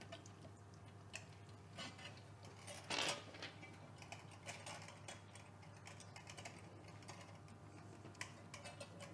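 Faint scattered clicks and light metal taps from handling a rotisserie spit rod on a stainless steel worktop, with a louder clatter about three seconds in.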